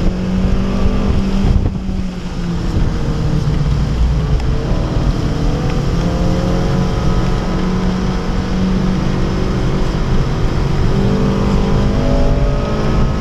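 2011 Honda Civic Si's 2.0-litre four-cylinder engine pulling hard under load, heard from inside the cabin: the revs dip briefly about two seconds in, then climb steadily for several seconds, over steady road and wind noise.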